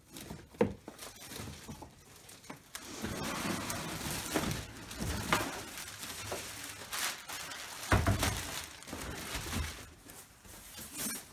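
Clear plastic wrap crinkling and rustling as it is pulled and handled, with cardboard packaging scraping and a dull thud about eight seconds in as the shipping box is shifted and lifted off.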